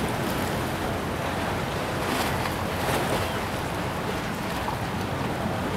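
Steady rush of wind and choppy harbor water, with wind buffeting the microphone now and then.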